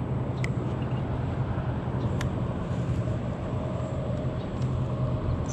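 A steady low hum and rumble of a motor vehicle running, with a few faint short ticks over it.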